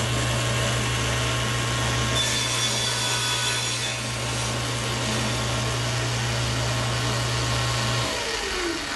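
Table saw running as a tenon cheek is cut, the workpiece fed past the blade in a tenoning jig, with a steady low motor hum. About eight seconds in the saw is switched off and its pitch falls as the blade spins down.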